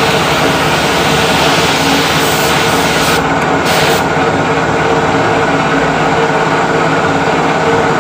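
Air spray gun hissing as it sprays a second coat of clear varnish onto a plastic car tail light lens, cutting out about three seconds in after one short last burst. A motor runs steadily underneath throughout.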